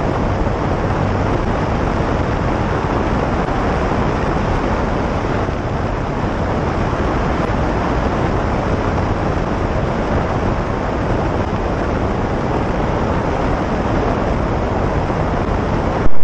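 Single-engine light aircraft's propeller engine running at takeoff power, with a steady rush of wind, as the plane climbs out after a touch-and-go.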